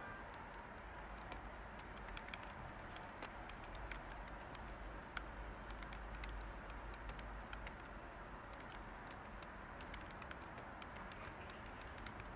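Light typing on a computer keyboard, irregular soft key clicks, over a steady white-noise hiss.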